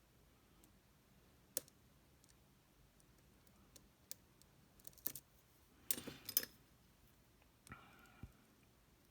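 Faint, scattered small metallic clicks and taps from handling the Tesa TK100 lock and picking tools, with a quick run of clicks about six seconds in and a brief light ringing scrape shortly after.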